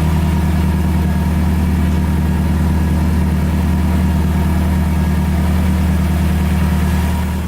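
Subaru Forester engine idling steadily, with an even low rhythmic pulse; it fades out near the end.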